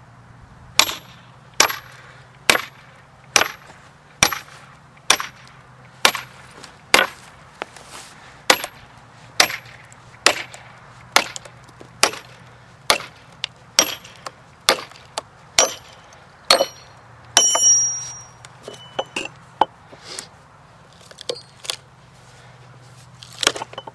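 Steel splitting wedges being driven into a maple log with steady hammer blows, about one strike a second, each a sharp metal-on-metal clink. About seventeen seconds in comes a longer, louder ringing clatter, then lighter, irregular knocks.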